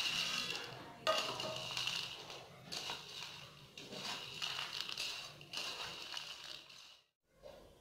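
Steel spoon stirring crisp puffed sago pearls (nylon sabudana) and fried peanuts in a bowl: dry rustling and scraping in repeated strokes about a second apart, stopping shortly before the end.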